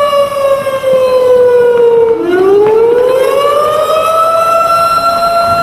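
Fire truck siren wailing loudly: its pitch slides down for about two seconds, swoops back up, then holds steady at the top.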